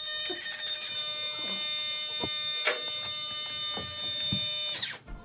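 Cheap 300 psi mini air compressor running with a steady, high buzz and a few irregular clicks, then switched off near the end, its pitch falling as the motor winds down. It is delivering no air at all.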